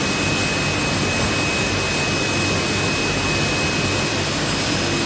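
Steady machinery noise from a large sheetfed offset printing press: an even hiss over a low hum, with a thin steady high whine above it.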